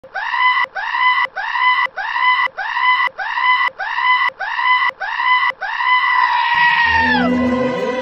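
A high-pitched, bleat-like comic sound effect repeated about ten times, nearly two a second, each note identical, ending in one longer note that drops in pitch. Background music with a bass line comes in near the end.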